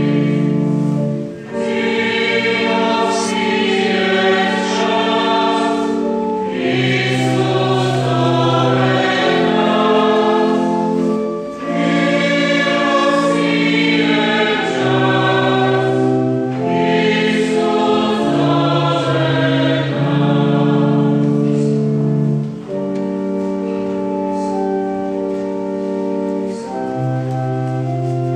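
Mixed choir singing a Croatian Lenten hymn in several parts, with held organ chords underneath. About 23 seconds in, the voices stop and the organ plays on alone.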